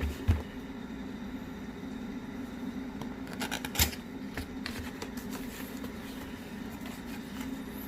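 Handling of product boxes and packaging during an unboxing: two short knocks right at the start, then a cluster of clicks and a knock a little before the middle, over a steady low hum.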